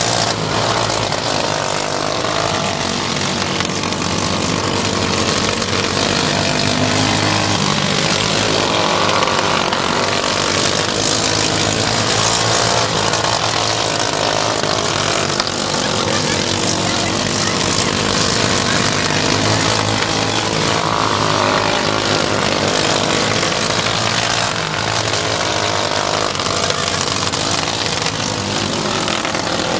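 Engines of several modified mini dwarf race cars running hard as they lap a small dirt oval, their pitch rising and falling as the cars accelerate and pass.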